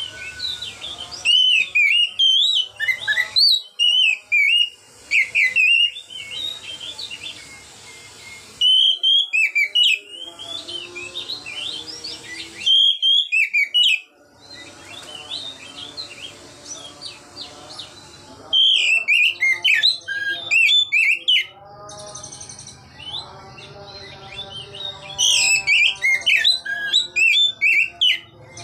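Oriental magpie-robin (kacer) singing loud, clear 'ngeplong' song: about six bursts of quick whistled notes gliding up and down, a few seconds apart.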